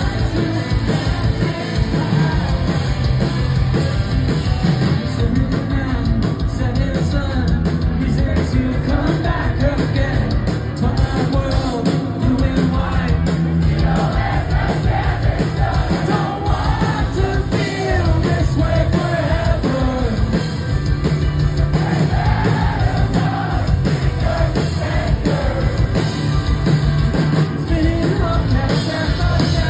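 Post-hardcore band playing live and loud: distorted electric guitars, bass and drums with a singer's voice, carrying on without a break.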